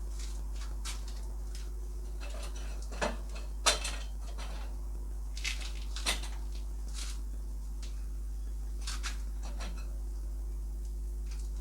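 A steady low machine hum, switched on just before, with scattered sharp metallic clinks and knocks over it; the loudest knock comes a little under four seconds in.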